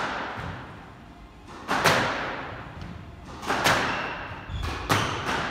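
Squash ball being hit back and forth in a rally: four sharp smacks of racket and front wall, roughly every one and a half to two seconds, each echoing off in the court.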